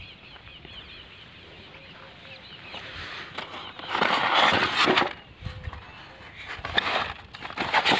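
Plastic-coated sprinkler packets crinkling and rustling as they are handled, in a loud burst about four seconds in and again in shorter bursts near the end.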